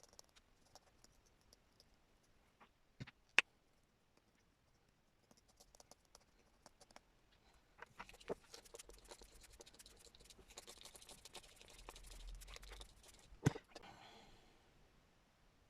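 Craft materials handled on a work table: a few light clicks, then a fine patter and crackle lasting about five seconds that ends with a sharp knock.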